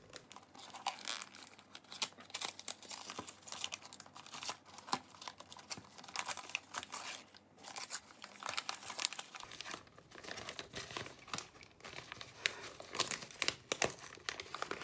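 Paper and cardboard packaging of a vending-machine mystery box being torn and crinkled as it is opened, with irregular rustles and crackles throughout.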